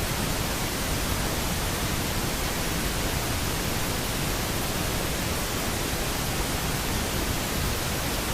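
A steady, even hiss of static-like noise across all pitches, starting abruptly at full level and holding constant without change.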